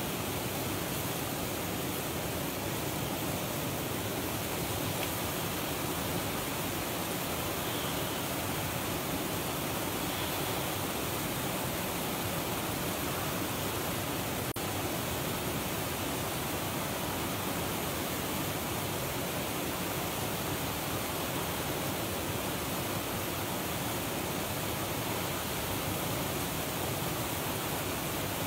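Steady rushing of water from a small, nearly frozen waterfall, an even unbroken hiss.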